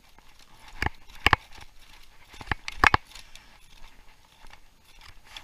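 A handful of sharp clicks and knocks, one near the first second, a pair a little later, and two close together near three seconds, over faint hiss.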